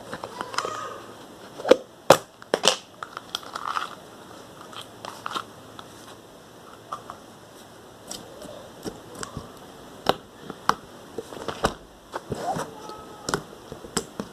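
Slime being squeezed and kneaded by hand, giving irregular sticky pops and crackling clicks.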